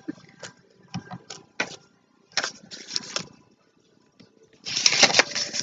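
Packaging rustling and crinkling as an item is handled, with scattered small clicks and a louder, longer rustle near the end.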